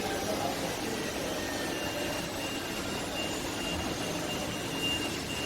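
IFB Senator Plus VX front-loading washing machine spinning its drum in the spin-test step of its service test mode: a steady mechanical run with a faint high motor whine.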